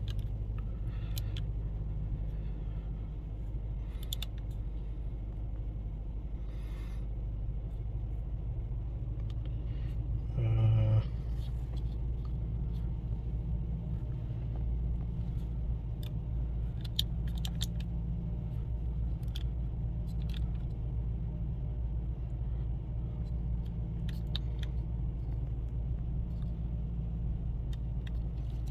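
Ford Coyote 5.0 V8 of a 2012 Mustang GT idling steadily just after an oil change. About ten seconds in there is a brief louder hum lasting under a second.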